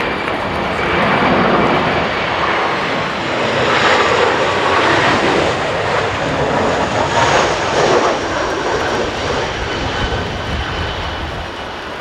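Jet engines of an Airbus A321 airliner passing low overhead on approach. The rushing jet noise carries a faint high whine; it swells about four seconds in and again near eight seconds, then eases off. Strong gusts of wind buffet the microphone.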